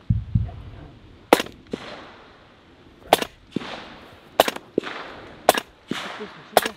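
A gun fired five times at feral hogs, the shots a second or two apart, each followed by a fading echo.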